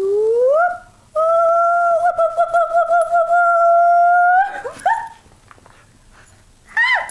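A woman's voice imitating an animal call: a rising hoot, then a long held hoot with a warbling middle stretch that breaks off about four and a half seconds in. The dog jumps up at her; a brief high squeak comes near the end.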